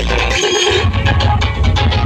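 Loud electronic dance music played through a DJ sound system, with a heavy pulsing bass and a fast beat.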